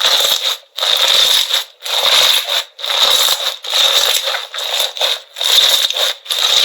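Slime crackling and popping as it is squeezed and worked, about seven crackly bursts a little under a second apart.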